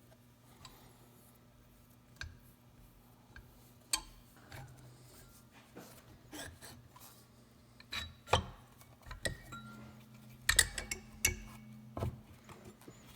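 Metal hand tools clinking and knocking against bare engine parts: a scatter of sharp clinks and a little scraping, busiest in the second half, over a faint steady hum.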